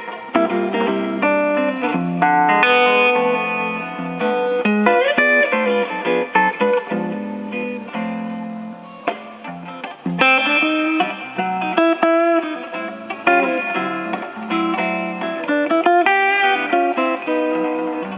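Guitar playing, fast runs of single notes mixed with chords.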